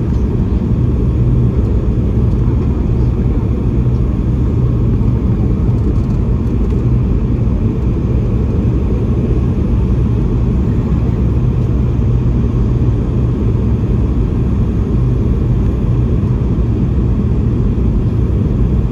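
Steady cabin noise inside a Boeing 717-200 airliner: the rear-mounted Rolls-Royce BR715 turbofans and airflow making an even low drone with a steady hum.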